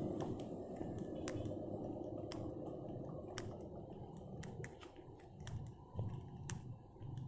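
Scattered sharp clicks and soft thumps of footsteps on a dirt track over a faint low rumble, with vehicle noise dying away at the start.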